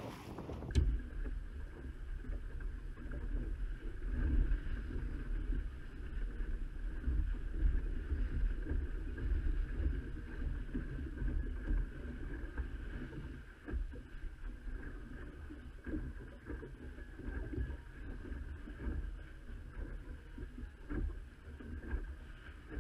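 Water sloshing along the hull of a small sailing boat under way, with a low, fluctuating rumble of wind on the microphone.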